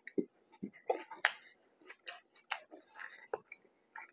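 A man chewing a mouthful of ground pork mac and cheese burger, with irregular short smacks and clicks from the mouth.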